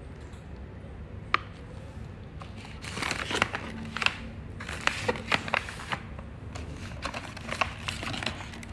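Plastic pouches of dog dental chews crinkling and rustling as they are handled, with a dense scatter of sharp crackles from about three seconds in.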